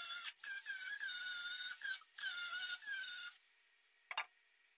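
Small angle grinder grinding welds flush on a steel patch panel, a high whine in three passes that dips in pitch as each pass bites, stopping about three seconds in. A short click follows near the end.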